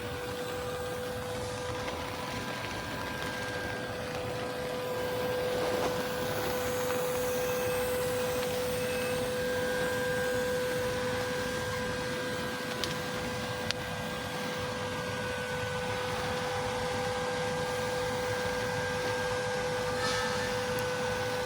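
TIG welding arc running steadily on a root pass: a constant buzzing tone over an even hiss, with a few faint clicks.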